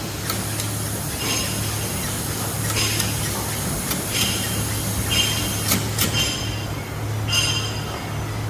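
Steady low machine hum in a metal workshop, with about six short, ringing metallic clinks at uneven intervals, like metal parts knocking against metal.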